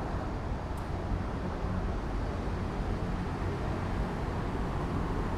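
Steady low rumbling background noise, even throughout, with no distinct events.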